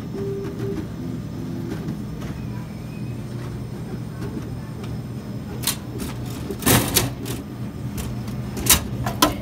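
Bottle vending machine with an elevator cup: its motor hums and whines in short, shifting tones while the cup carries a bottle down. In the last few seconds come a series of sharp clunks and knocks, the loudest about two-thirds of the way in, as the bottle is delivered into the pickup bin.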